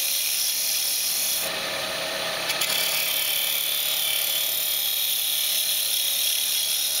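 A bowl gouge with an Ellsworth grind cutting into spinning end grain on a wood lathe: a continuous scraping hiss of shavings being peeled off the inside of the hollow. About a second and a half in, the cut turns fuller and coarser.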